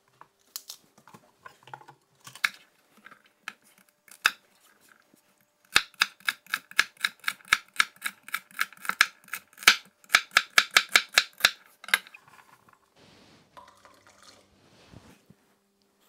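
Chef's knife chopping celery stalks on a wooden cutting board: scattered knocks at first, then a quick, even run of chops, about four a second, from about six seconds in to about twelve.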